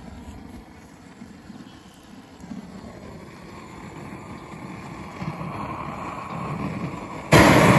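Propane weed torch lit near the end: a sudden loud, steady rushing of burning gas from the burner, after several seconds of only quiet background.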